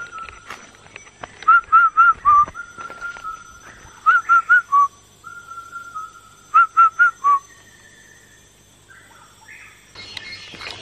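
A bird's loud whistled song, given three times: a long steady whistle, then a quick run of three or four short, clipped notes that ends on a lower note.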